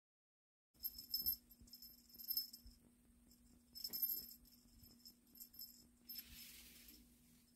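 Small jingle bell on a cat teaser wand, shaken in irregular bursts of light jingling as the toy is waved. A brief rustle comes about six seconds in.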